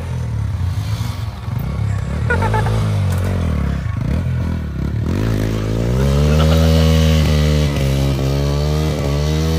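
Motorcycle engine running, its revs rising and falling unevenly. About five seconds in it revs up and stays high, wavering a little.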